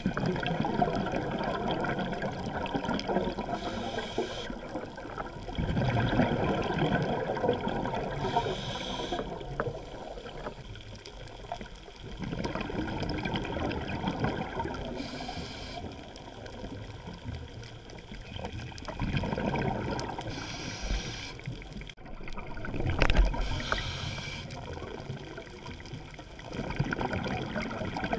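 Scuba diver breathing through a regulator, heard through a waterproof camera housing: exhaled bubbles gurgling in surges every five to six seconds, with a short hiss of inhalation between them.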